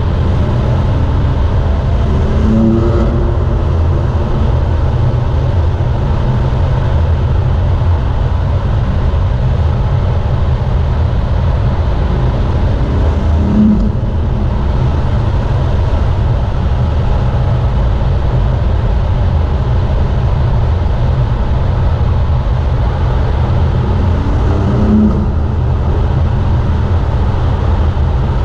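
BMW M4 F82's twin-turbo straight-six running at speed, heard from inside the car with the passenger window down, under a heavy steady rumble of wind and road noise. Three times a brief rising engine note comes through, about two seconds in, near the middle and near the end.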